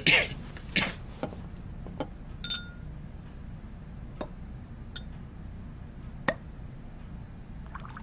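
A man coughs at the very start. Then come scattered light clinks and taps of glass: small corked glass bottles and a cut-glass goblet picked up and set down on a wooden table, one with a short ringing tone, and a sharper knock about six seconds in.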